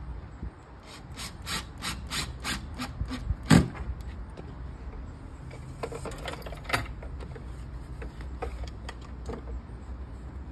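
Clicks and taps of small hardware and tools being handled, about three a second for a couple of seconds and ending in one loud knock, then a few scattered clicks.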